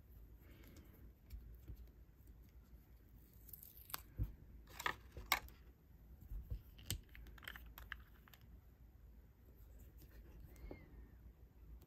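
A plastic multi-balm stick handled in the fingers: soft rubbing with scattered light clicks, and a cluster of sharper plastic clicks about four to five and a half seconds in.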